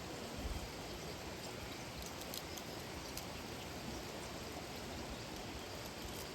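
Steady rush of flowing water from a waterfall and stream, with a few faint light ticks and one low bump about half a second in.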